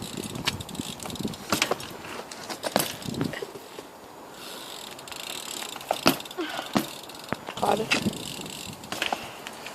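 BMX bike being ridden for tricks: a series of sharp knocks and clacks from the wheels and frame hitting the ground, the loudest about six seconds in, with rattling and ratchet-like ticking from the bike between them.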